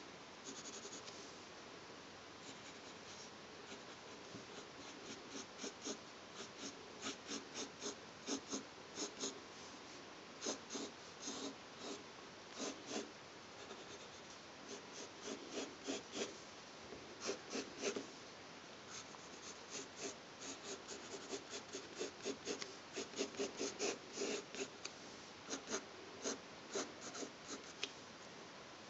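Graphite pencil scratching on paper in quick short strokes that come in flurries, as strands of hair are sketched in, over a faint steady hiss.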